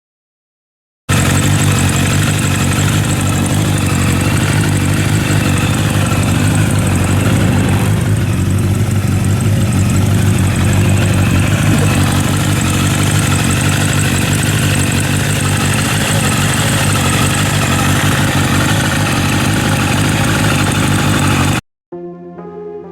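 Kawasaki Ninja-series inline-four motorcycle engine running steadily on a short test ride, its cam chain tensioner just re-adjusted to cure a clattering cam chain. It starts abruptly about a second in and cuts off near the end.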